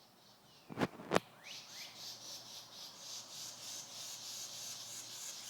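Two sharp clicks about a second in, then a bird call: a rapid, pulsing, high-pitched chirping with quick falling squeaks that keeps on steadily.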